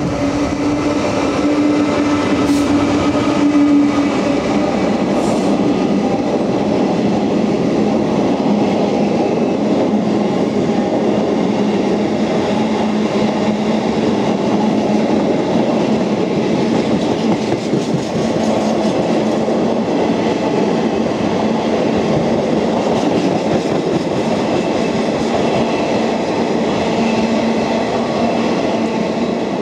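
Class 66 diesel locomotive's two-stroke EMD engine passing close by, its steady engine note dropping in pitch about four seconds in. A long train of empty container flat wagons then rolls past with continuous wheel-on-rail noise.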